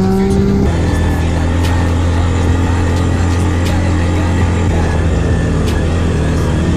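Quad bike (ATV) engine running steadily as it cruises over sand, a low even drone with a constant pitch. About half a second in, the engine note shifts once, then holds steady.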